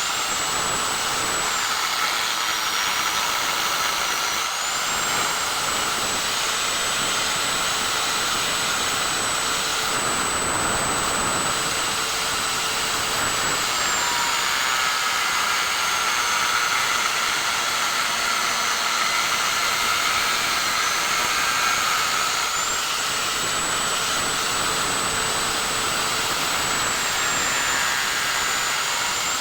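A small electric motor running steadily with a high whine over a rushing hiss; the whine drops a little and climbs back several times, as if the load changes.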